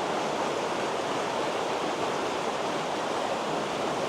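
A river's flowing water: a steady rushing.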